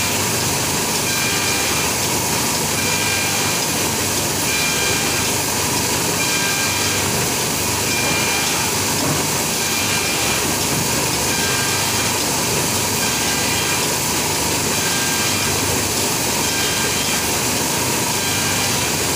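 Polygraph hook-thread book sewing machine running: a steady mechanical clatter, with a short high note that recurs about every two seconds.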